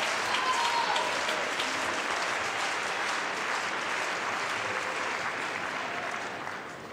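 Tennis crowd in an indoor arena applauding a won point, the clapping dying away near the end.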